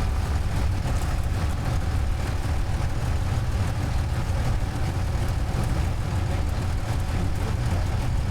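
An engine idling steadily with a continuous low rumble.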